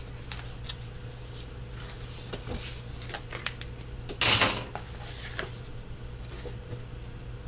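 Hands handling cardstock recipe cards and a glue bottle: light taps and paper clicks, with one louder brushing scrape about four seconds in, over a steady low hum.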